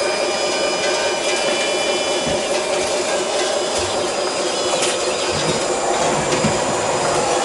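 Small electric motors of radio-controlled construction machines whining steadily as they work, with a few scattered clicks and knocks.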